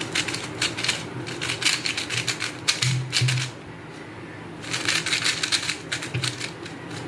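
QiYi Tornado V4 maglev 3x3 speedcube being turned quickly: a rapid clatter of layers clicking into place. It comes in two bursts, about three and two seconds long, with a short pause between.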